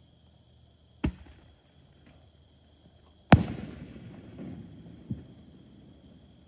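Aerial fireworks shells bursting: a sharp bang about a second in, a louder bang a little past the middle followed by a long rumbling echo, and a smaller bang about five seconds in.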